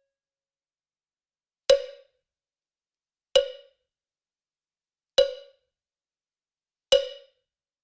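Four short, sharp percussive knocks, evenly spaced about every 1.7 seconds, each with a brief pitched ring that dies away quickly: a struck-percussion sound effect of the wood block or cowbell kind.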